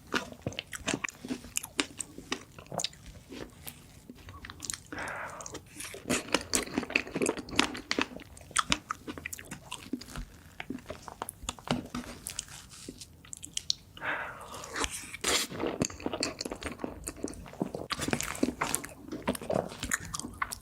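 Close-miked eating of strawberry cake: biting and chewing, with many quick, irregular wet mouth clicks and smacks.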